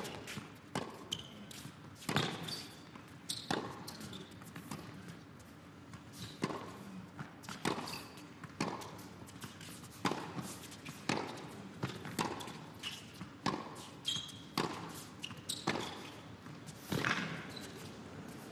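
Tennis rally on an indoor hard court: racket strikes on the ball and ball bounces, sharp knocks coming about once a second.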